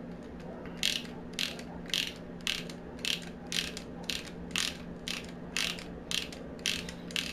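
Ratchet wrench clicking in short, even strokes, about two a second, as it tightens a bolt through an extension, a universal joint and a socket held at an angle.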